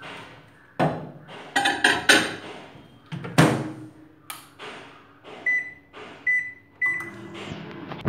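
A glass dish clattering and knocking as it is set into a microwave oven, and a loud clunk as the door shuts. Then three short keypad beeps as the timer is set, and the oven starts to hum near the end.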